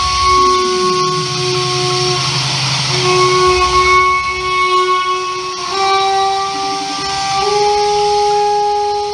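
Experimental drone music played live: several steady held tones layered over a hiss. A low tone glides down in the first second or so, and the pitches shift in steps a few seconds later.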